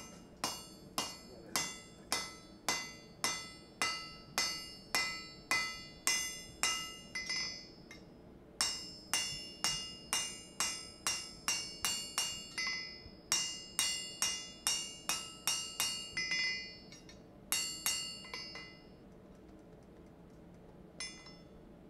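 Hand hammer peening a red-hot rivet to join the two halves of blacksmith tongs on the anvil: steady blows about two a second, each ringing clearly. The blows come in two long runs with a short break between, a few more follow, and they stop a few seconds before the end.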